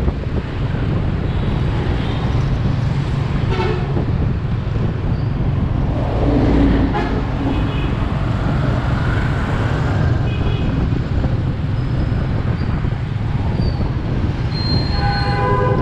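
Steady low rumble of riding on a motorbike through dense scooter traffic, with motorbike horns beeping four times, the longest beep near the end.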